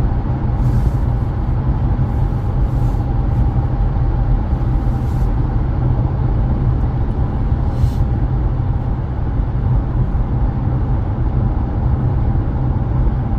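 Stock-exhaust Infiniti Q50 Red Sport 400, with its 3.0-litre twin-turbo V6, cruising at a steady speed: a steady low drone of engine and road noise with a faint steady whine over it.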